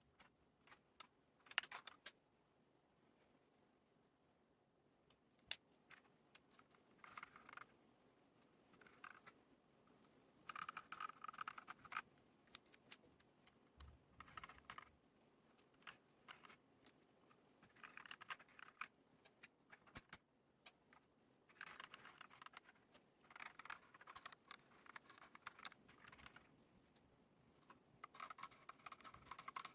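Typing on a mechanical keyboard, a Redragon K596 with Akko CS Lavender Purple tactile switches and HyperX PBT pudding keycaps. The keystrokes come in bursts of quick presses with short pauses between, and a few sharper single clicks near the start.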